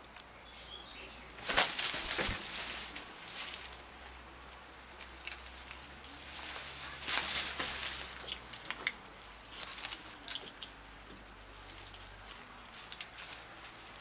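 Blue-and-yellow macaws flapping their wings in two noisy bursts, about one and a half and about seven seconds in, with scattered light taps and clicks between.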